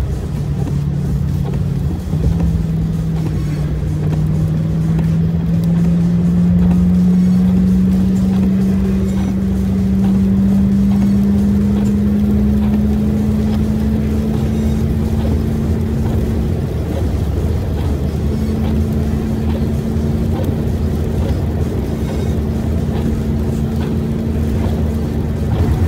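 Inside a moving vehicle's cabin on a wet road: a steady engine drone that slowly rises in pitch as the vehicle gathers speed, then holds level, over the low rumble and hiss of tyres on the wet surface.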